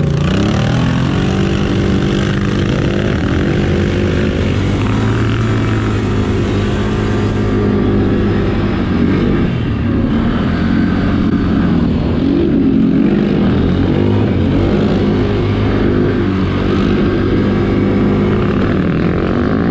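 ATV engine running, its pitch rising and falling again and again with the throttle.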